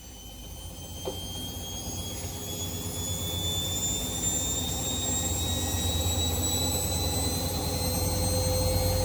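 Washing machine drum and motor spinning up, a whine rising slowly in pitch and growing louder, like a jet engine taking off. The grinding from a loose balancer screw is gone now that the screw has been secured. There is a light click about a second in.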